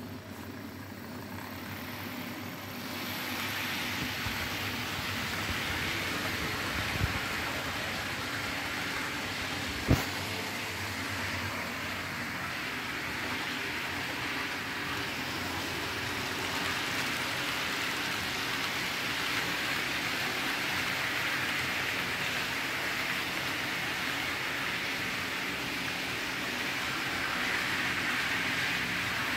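Model trains running on a model railway: Lima models of Dutch NS electric locomotives and double-deck coaches, their motors whirring and wheels rolling on the rails in a steady noise that builds over the first few seconds. A sharp click comes about seven seconds in and a louder one about ten seconds in.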